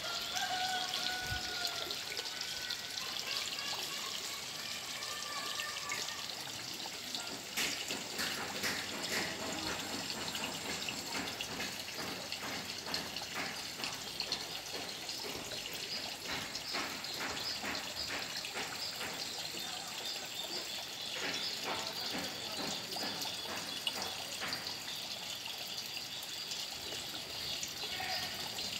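Water trickling and splashing steadily into a small fish pond, with many small drips and ticks.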